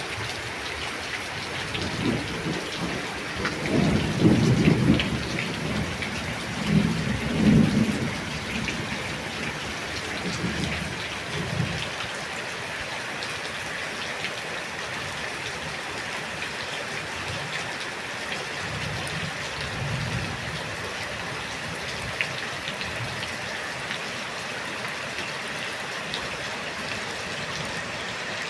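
Steady rain falling, with low thunder rumbles rolling in and out, the loudest about four and seven seconds in and fainter ones later.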